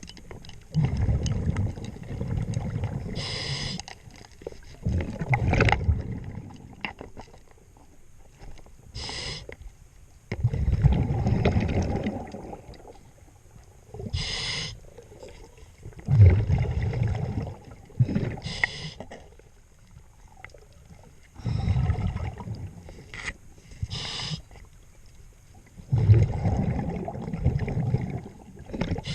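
Scuba diver breathing through a regulator underwater: a short hiss of inhalation, then a longer low burble of exhaled bubbles, repeating about every five seconds, six breaths in all.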